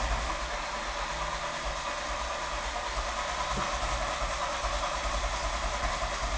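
Volkswagen Golf engine running steadily at idle just after starting, heard from inside the car's cabin.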